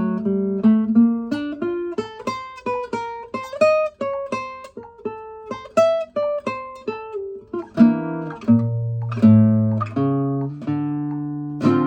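Kazuo Yairi CY 130 acoustic guitar, made in Japan in 1976, played solo. It starts with a melody of single plucked notes at an even pace, and from about eight seconds in, lower, longer-ringing notes with a bass line beneath them.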